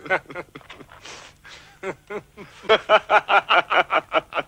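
Men laughing: a quick, even run of 'ha-ha-ha' laughs starting a little over halfway through, after a few short vocal sounds.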